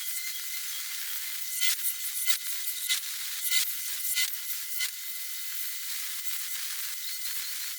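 Waterjet cutter cutting steel plate: a steady high hiss with irregular sharp cracks, about one every half second for the first five seconds and fewer after that.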